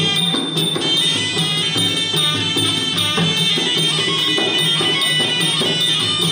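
Traditional Kun Khmer boxing music: a reedy oboe (sralai) playing a continuous, wailing melody over drums and small cymbals keeping a steady beat.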